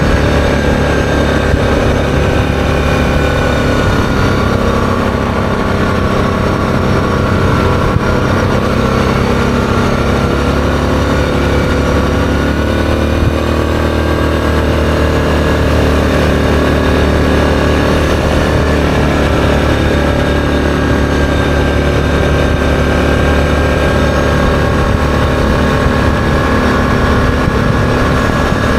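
ATV engine running steadily under way at road speed; its note changes slightly about twelve seconds in.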